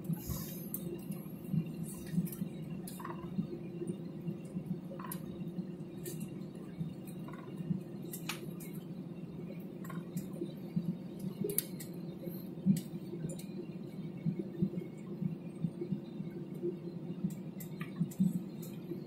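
Steady low hum of an airliner cabin as the plane taxis after landing, with scattered light clicks and clinks over it.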